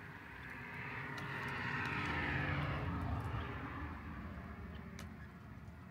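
A passing engine, swelling to a peak about two seconds in and then fading away.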